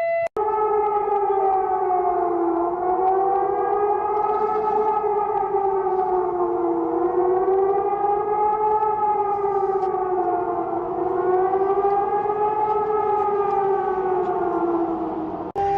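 Civil defense siren sounding a wavering wail: two tones rise and fall together in slow sweeps about every four seconds. It starts abruptly just after the beginning and cuts off near the end.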